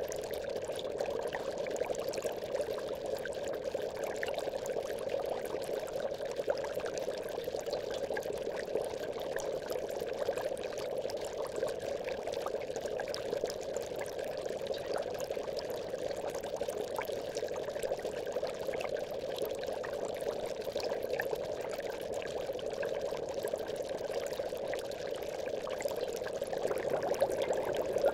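Aquarium bubbles rising through water in a continuous, even bubbling stream with many small pops.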